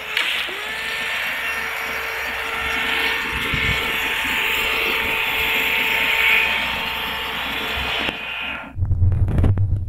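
Water spray from a big-gun irrigation sprinkler raining down over young maize, a loud steady hiss that cuts off suddenly near the end, followed by a low rumble.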